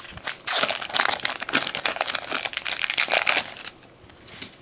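Crinkling and rustling of card packaging being handled, a dense run of sharp crackles that dies away after about three and a half seconds.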